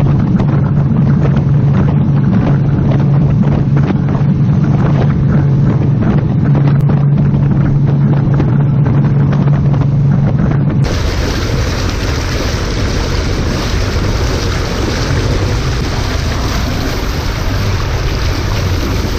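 Century Resorter inboard runabout under way at speed: a steady low engine drone over the rush of the wake and wind. About eleven seconds in, the sound changes suddenly to a loud, even rush of water and spray with no engine tone.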